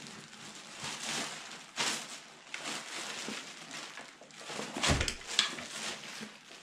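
Rustling and crinkling of packaging being handled, with scattered small clicks and a dull thump about five seconds in.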